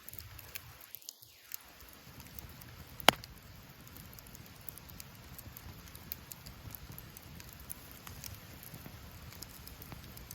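Wood campfire crackling, with scattered small pops and one sharp, loud pop about three seconds in.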